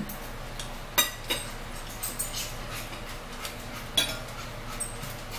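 A fork clinking against a plate as someone eats: a few sharp clinks, the loudest about a second in and again about four seconds in.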